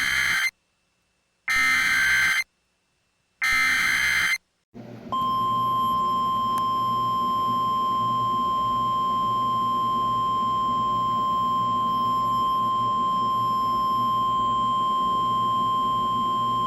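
Simulated NOAA Weather Radio Required Weekly Test alert. First come the end of one SAME data header burst and two more: harsh, buzzing digital bursts about a second long and a second apart. Then, from about five seconds in, the steady 1050 Hz warning alarm tone holds over a background of radio hiss.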